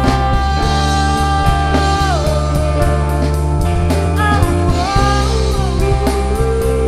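A rock band playing. A singer holds long notes that slide down at their ends, over a Fender Stratocaster electric guitar, bass, and a drum kit with regular drum and Sabian cymbal hits.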